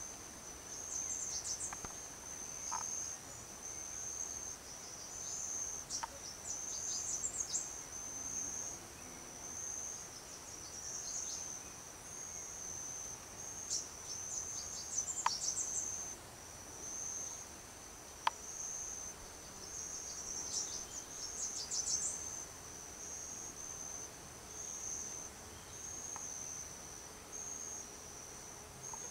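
Insects trilling in a high-pitched series of short, regular pulses, about one a second, with bursts of higher chirping every few seconds and a few sharp ticks.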